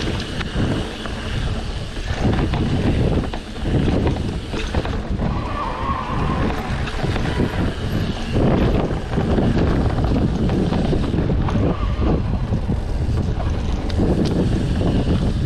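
Wind buffeting the microphone on a moving mountain bike, a gusty low rumble, with frequent knocks and rattles from the bike over rough ground.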